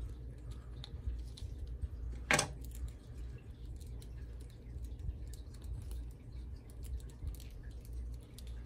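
Small plastic clicks and handling noises as a tiny plastic camera accessory and its strap are fitted onto a plastic action figure, with one sharper click a little over two seconds in. A low steady hum runs underneath.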